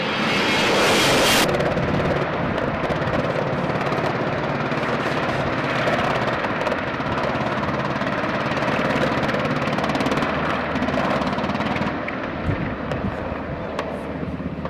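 Twin turbofan jet noise of an A-10 Thunderbolt II with a bright hiss for about the first second and a half, cut off abruptly. Then the steady rotor and turbine noise of an MH-60R Seahawk helicopter hovering.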